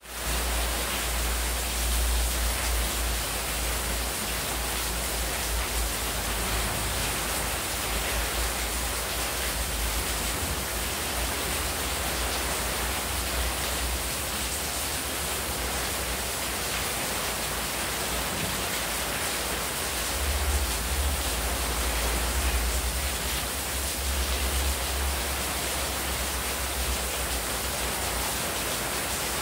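Heavy rain falling into an open courtyard, with water pouring off the roof edge and splashing onto the tiled floor: a steady, dense hiss. A low rumble underneath swells and fades, strongest at the start and again about two-thirds of the way through.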